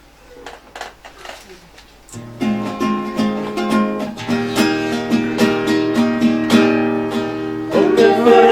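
Church band music: a few quiet plucked notes, then about two seconds in strummed guitar or ukulele chords over a bass line start with a steady beat, and voices begin singing near the end.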